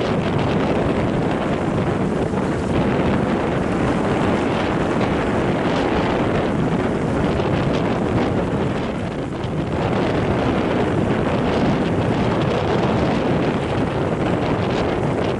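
Strong wind of about 10 to 11 m/s buffeting the camera microphone: a steady, loud rumbling roar, easing briefly about nine seconds in.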